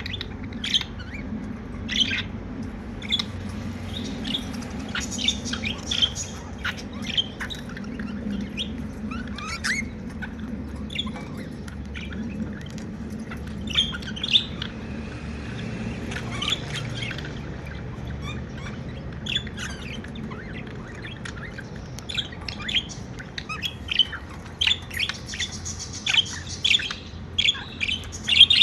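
Pet budgerigars chirping and chattering: many short, sharp calls and squawks come in quick irregular bursts, thickest near the end, over a faint steady low hum.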